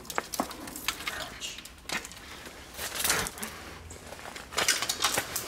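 Shoes stepping and scuffing on the ridged floor of a corrugated metal culvert pipe and the loose rocks at its mouth: irregular scrapes and knocks, busier about three seconds in and again near the end.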